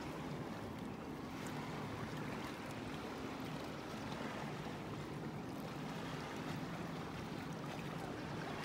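Steady ambience of shallow water lapping, with wind, under a faint steady low hum.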